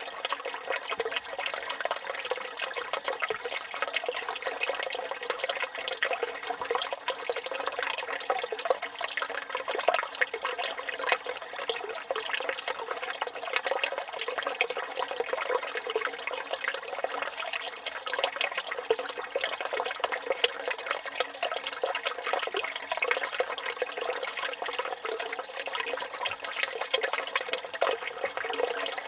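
Water running steadily from a village fountain's spout and splashing into the basin below, an even, unbroken rush of splashing.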